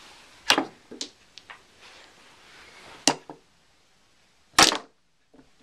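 Sharp clicks and knocks of a toy mini pool table: cue tip and small balls striking one another. Several clicks come in the first second and a half, two more about three seconds in, and a louder knock about four and a half seconds in.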